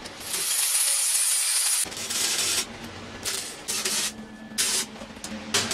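Grinding on the steel plate of a suit of armour: a steady hiss for about two seconds, then several short grinding passes, each under a second long.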